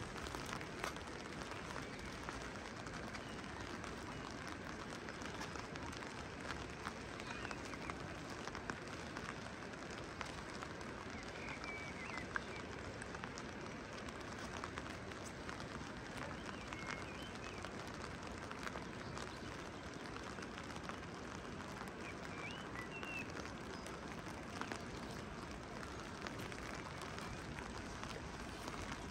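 Steady rain falling and pattering on surfaces, with scattered individual drops standing out.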